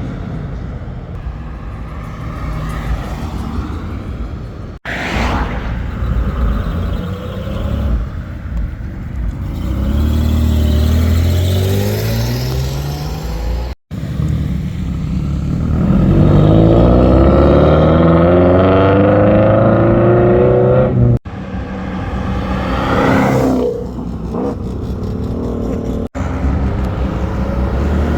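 Car engines revving and accelerating in a string of short clips, the exhaust note climbing in pitch several times, with abrupt cuts between clips.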